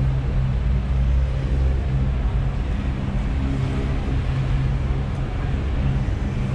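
Steady low engine drone holding a few deep tones without change.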